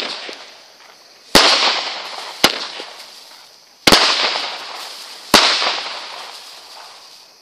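A 250 gram 'Camaro' consumer firework cake from Shotgun Fireworks firing its shots: five sharp bangs about one to one and a half seconds apart. Most are followed by a hiss of sparks that fades over a second or two, and the last one dies away near the end.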